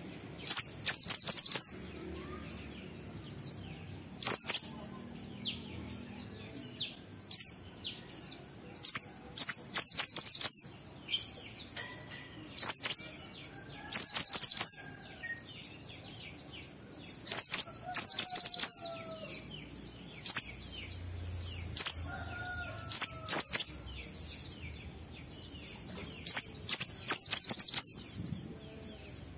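White-eye (pleci) singing in the fast 'ngalas' style: clusters of very high, rapid chirping twitters repeated every second or two. Fainter, lower sliding whistles come in between.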